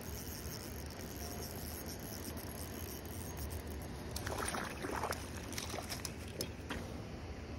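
Steady low outdoor rumble, with a short flurry of rustling, knocking noises and a few clicks about four seconds in.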